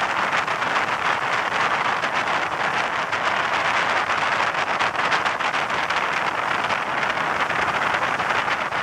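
Steady rush of wind and water spray from fishing boats running fast, with no clear engine note standing out.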